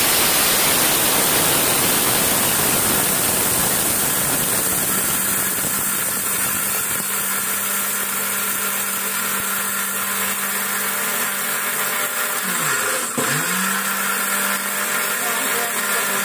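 Electric mixer grinder running at full speed, dry-grinding rice into flour. Its motor hum dips once and comes back up about three quarters of the way through.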